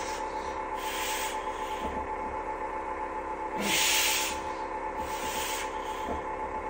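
Short breathy hissing rushes, one with each banded X3 bar deadlift rep against three heavy resistance bands; the loudest comes about four seconds in, as the lift reaches the top. A steady hum runs underneath.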